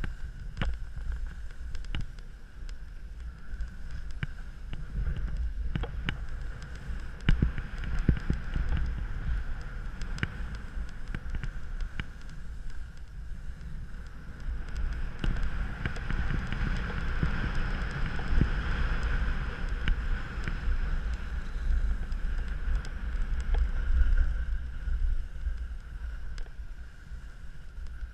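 Wind buffeting a bike-mounted action camera's microphone while a bike rides over snow, with tyre noise on the snow and frequent sharp knocks and rattles from bumps. The noise grows louder around the middle.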